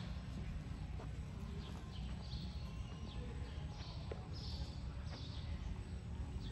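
Faint indoor show-arena ambience: a steady low rumble, a few soft hoof steps on the dirt in the first two seconds as the horse trots and halts, and short high chirps scattered through.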